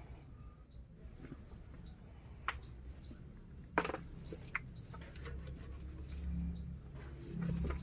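Goats crunching snacks: a few sharp crunches, the loudest about four seconds in, with small birds chirping faintly and a low rumble in the last few seconds.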